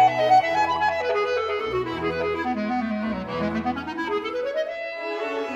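Outro music: a solo clarinet playing quick running scale passages, descending and then climbing again, over low sustained accompaniment notes that drop out about four seconds in.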